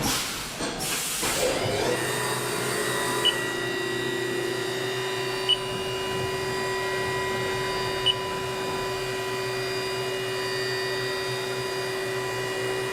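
A rushing noise, then about two seconds in a CNC milling machine's spindle comes up to speed and runs with a steady whine, made of several fixed tones. Three short sharp ticks sound during the run.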